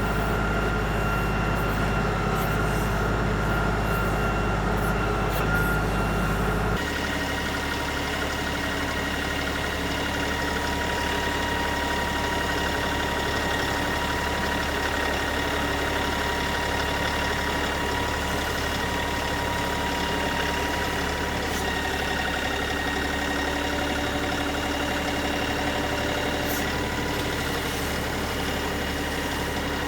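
LS XR3135 compact tractor's engine running steadily, its tone changing abruptly about seven seconds in and then holding steady.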